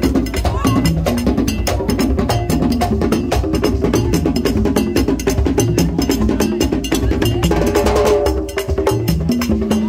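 Vodou ceremonial percussion: drums with a sharp struck bell or wood-block-like click keeping a fast, steady rhythm for the dancers.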